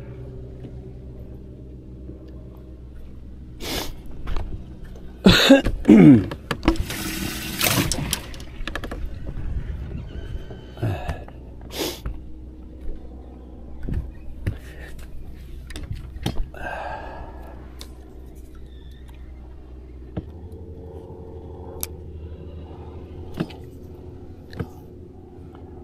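Electric trolling motor holding the boat on spot lock, a steady low hum that shifts in pitch about twenty seconds in. Over it come knocks and thumps of handling on the boat, loudest about five to eight seconds in with a burst of rushing noise.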